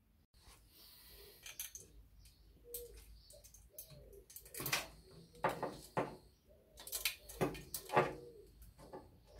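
Metal clicks, clinks and scrapes from exhaust springs being hooked and stretched onto the slip joint of a stainless 4-into-1 exhaust with a spring-hook tool. The clicks come in an uneven run and grow more frequent over the second half.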